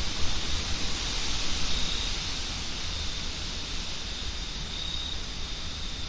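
Wind blowing steadily, with a low rumble and a faint, unbroken high-pitched tone running under it.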